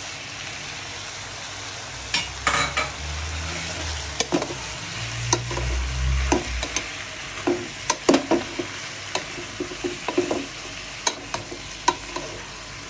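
Shiitake mushrooms and pork sizzling as they are stir-fried in a pot, with a wooden spatula scraping and knocking against the pot many times.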